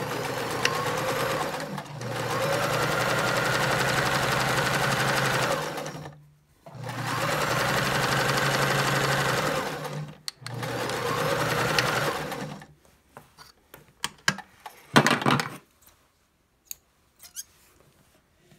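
Electric sewing machine stitching a seam through two layers of flannel in four steady runs with brief stops between them, the machine stopping about two-thirds of the way in. After that come scattered clicks and handling noises.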